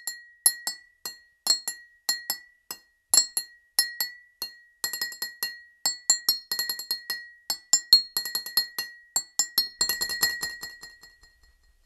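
A glass struck again and again as a short piece of music, each strike a sharp clink ringing at the same high pitch. The strikes come a few a second at first, crowd together from about halfway, then thin out and stop just before the end.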